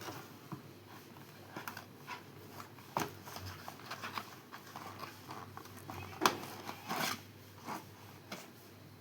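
Smart watch packaging being handled: scattered rustles, scrapes and small taps, with a sharper knock about six seconds in and a longer rustle just after.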